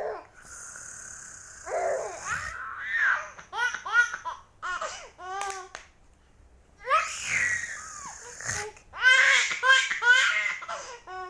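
A baby laughing with ticklish laughter, in two long runs of short, chopped giggles, the second run the louder.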